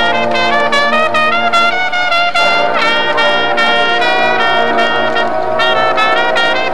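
Marching band brass section playing a loud, moving melody in full harmony, with percussion striking along in rhythm.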